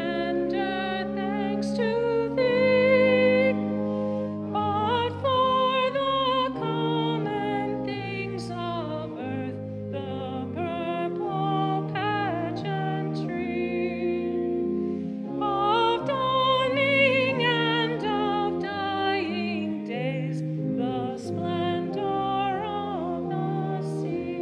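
A woman cantor singing solo, with vibrato, over held organ chords that change under her phrases.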